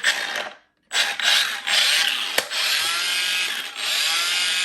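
Makita DGA519 18V brushless cordless angle grinder switched on at its lowest speed setting, 1, and running free with no load, its pitch rising as the soft start winds it up. It starts about a second in and dips briefly near the end before running on.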